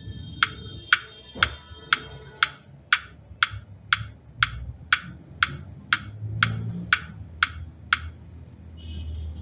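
Clock ticking evenly, about twice a second, sixteen ticks that stop about eight seconds in, over a low background rumble.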